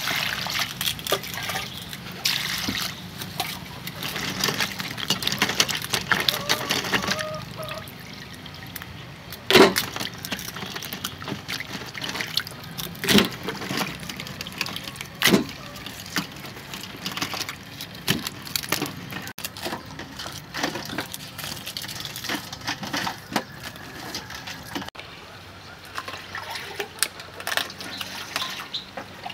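Water poured over live crabs in a metal bowl, splashing and trickling for the first several seconds. After that, a few scattered sharp knocks and clatters.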